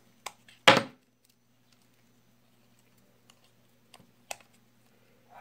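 Hard plastic and metal parts of a baitcasting reel clicking and clacking as they are handled and the spool is fitted back into the frame. One louder clack comes just under a second in, then a few faint clicks, over a faint steady low hum.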